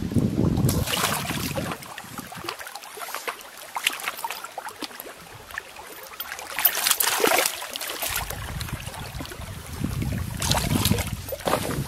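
Water splashing in several bursts as a hooked fish thrashes in shallow water at the shoreline, loudest about seven seconds in. Wind rumbles on the microphone at the start and again near the end.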